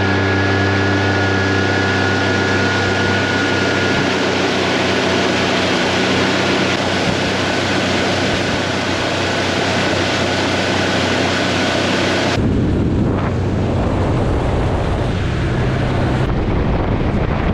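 Outboard motor on a small aluminium boat running steadily at speed, with a thin high whine over its hum and a rush of wind and water. About two-thirds of the way through, the engine tone drops back under a broad rush of wind and water noise.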